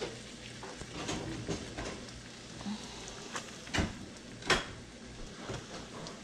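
Kitchen handling noise while flour-dredged turkey pieces are worked on a paper plate and laid into a pot on the stove: a few sharp knocks, the two loudest a little past the middle, over a faint steady frying hiss.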